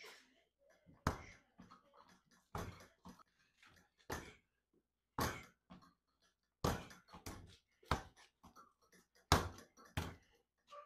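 Punches landing on the padded ball of a DIY spring-mounted reflex bag (CobraBag style). There are about a dozen sharp smacks at irregular intervals, some in quick pairs.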